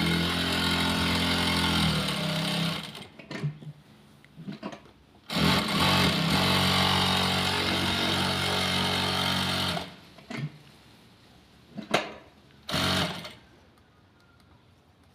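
JM Winston straight-stitch sewing machine running steadily in two long runs of a few seconds each, with short stop-start bursts between them and near the end.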